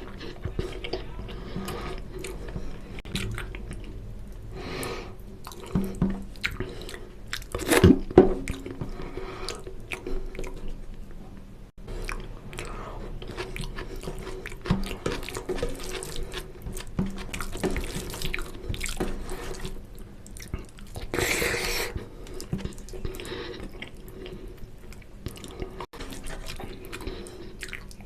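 Close-up chewing and wet mouth sounds of someone eating oily mutton fat curry with rice: many small smacks and squelches, with a louder knock about eight seconds in and a brief rush of noise around twenty-one seconds.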